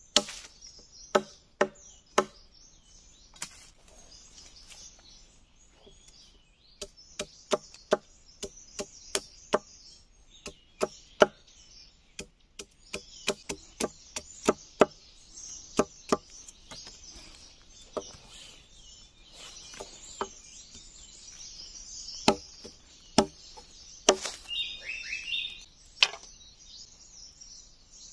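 Machete blade chopping and shaving a green wooden stick against a log: a series of sharp, irregular chops, at times about two a second. A bird chirps briefly about 24 seconds in.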